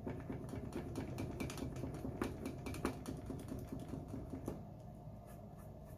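Scratch-off card being scratched on a table: a quick run of small scratching clicks and taps that thins out about four and a half seconds in.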